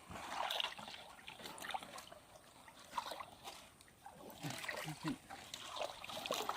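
Shallow water splashing and trickling in short, irregular bursts, from wading and scoop-net fishing.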